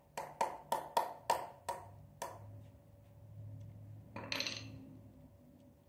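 About seven sharp, ringing metal taps, roughly three a second, as a connecting-rod cap on a stripped four-cylinder engine's bottom end is knocked loose to get at the rod bearing. A short scraping swish follows about four seconds in.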